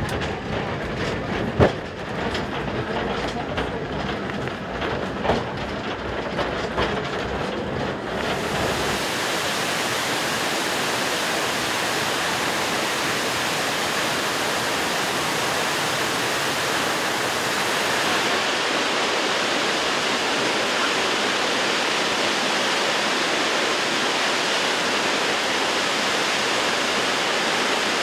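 A funicular car running on its rails, with a low rumble and two sharp clunks in the first few seconds. About eight seconds in it gives way to the steady rush of a mountain waterfall.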